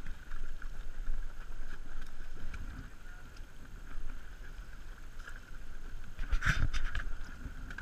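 Wind buffeting the microphone and the ambient noise of a small fishing boat on open water. Scattered knocks and handling thumps run through it, the loudest cluster about six and a half seconds in, over a faint steady high tone.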